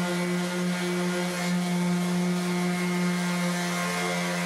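Random orbital sander running with a steady motor hum, wet-sanding cured gelcoat on a fiberglass boat hull with a 1000-grit hook-and-loop disc.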